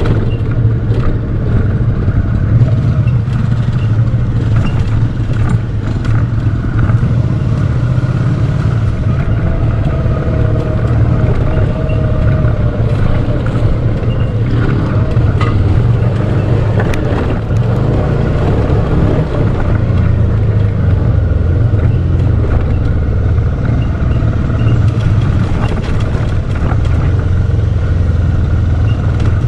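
Dual-sport motorcycle engine running steadily while riding, with a constant low hum.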